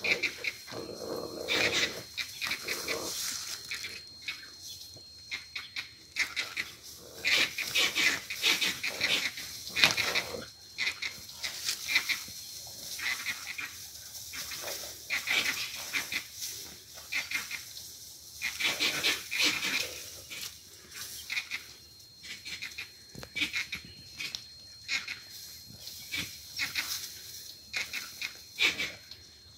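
African wild dogs and a spotted hyena attacking a live impala, with a steady stream of short, high-pitched squeals and cries one after another. The calls are loudest in a cluster about a quarter of the way through and again about two-thirds of the way through.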